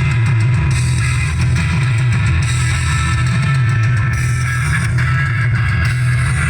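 Loud music played through a large sound-system rig, with heavy, steady bass and distorted guitar-like tones.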